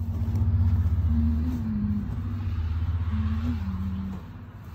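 Low rumble of a running motor vehicle engine with a wavering hum above it, loud from the start and easing a little near the end.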